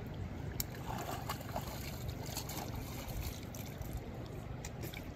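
Wind rumbling on the microphone over a steady wash of shallow river water, with a few faint clicks.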